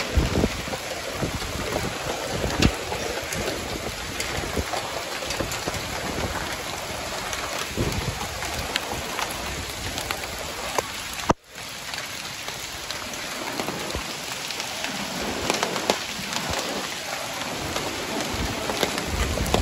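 Heavy rain mixed with hail falling on roofs and pavement: a dense steady hiss scattered with many sharp ticks of hailstones striking close by. The sound breaks off for a moment about eleven seconds in.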